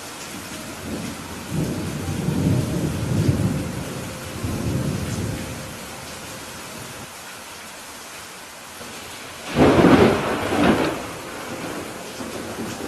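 Steady rain falling, with a low rolling rumble of thunder in the first few seconds, then a sharper, louder thunderclap about ten seconds in that rumbles off.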